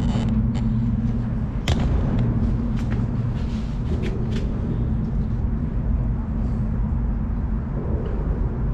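Steady low rumble and hum of road traffic on the bridge overhead, with a few faint clicks about two and four seconds in.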